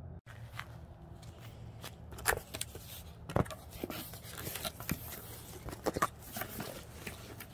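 Cardboard shipping box being opened and handled: flaps pulled back and cardboard scraping, with an irregular run of knocks and clicks, the two loudest about two and three and a half seconds in.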